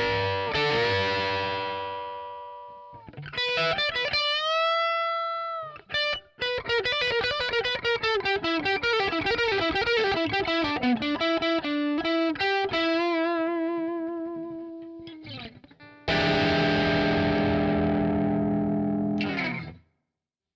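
Electric guitar played through a Zoom G2X Four multi-effects pedal's Marshall amp model, with overdriven distortion. A chord is struck and left ringing, a note is bent up and released, a quick run of single notes falls in pitch, then a final chord rings and is cut off near the end.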